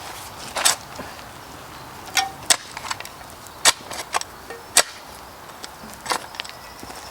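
Hand planting in gritty, stony soil: a string of sharp, irregular clicks and short scrapes as grit and small stones are dug and shifted.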